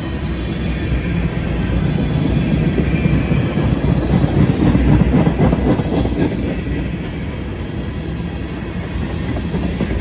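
Tank cars of a long Union Pacific manifest freight train rolling past close by: a steady rumble of steel wheels on the rails with rapid clatter, loudest about four to six seconds in.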